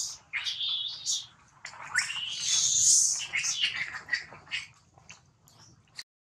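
Shrill, high-pitched animal calls in broken bursts with a few short rising and falling glides, loudest in the first three seconds and thinning out after. The sound drops out completely for a moment near the end.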